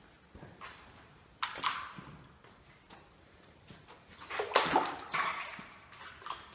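Footsteps splashing and sloshing through shallow standing water on a concrete floor, in two bouts about one and a half and four and a half seconds in, the second louder.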